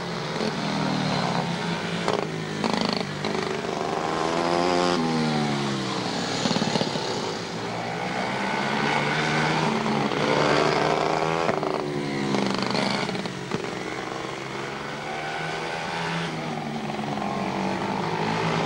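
Quarter midget race cars' small single-cylinder engines running on track, their pitch rising and falling again and again as the cars accelerate, pass and lift for the turns.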